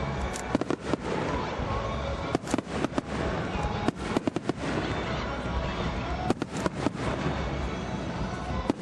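Fireworks going off in quick clusters of sharp bangs and crackles, over a steady background din.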